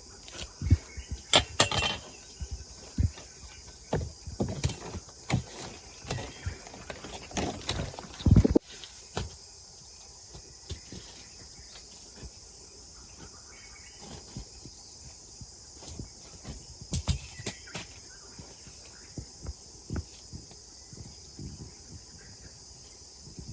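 Insects chirring steadily, with irregular rustling, knocks and thuds over it; the heaviest thump comes about eight seconds in.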